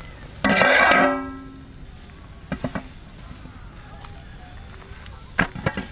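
Crickets chirring steadily. About half a second in comes a loud, short clang that rings on briefly, and a few light knocks follow later.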